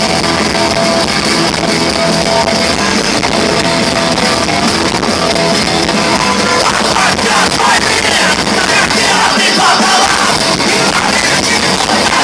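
Rock band playing live, loud and continuous, with no clear lead vocal line.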